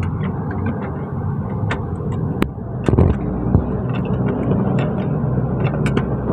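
Light metallic clicks and knocks of hand tools working on the steering-shaft joint of a car's rack and pinion, over a steady low rumble of vehicle or shop noise. A louder knock comes about three seconds in.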